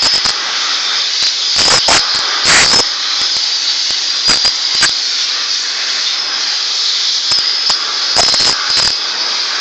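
Electric air blower running steadily with a high whine and a hiss of rushing air as it blows dust out of a split AC indoor unit's blower wheel, with several brief louder bursts.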